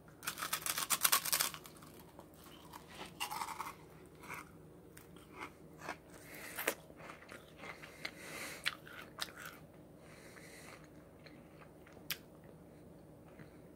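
Biting into a charred lump of butter-fused microwave popcorn and chewing it: a dense run of crunches as the bite is taken, then scattered crunches of chewing every second or so.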